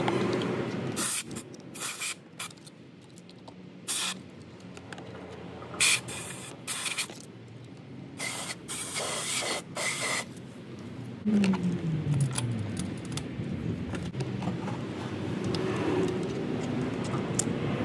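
Repeated short spurts of compressed air hissing, blowing dirt out of a motorcycle's spark plug well before the plug comes out. There are about eight quick blasts over the first ten seconds, some longer than others. A brief low drone falls in pitch a little past halfway.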